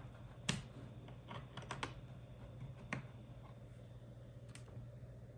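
Scattered clicks of computer keys being pressed, a handful of separate taps with the sharpest about half a second in and three seconds in, over a faint steady low hum.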